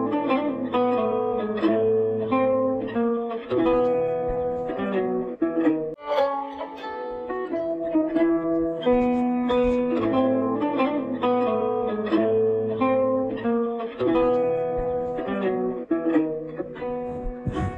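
Instrumental music played on plucked strings: a continuous run of picked notes.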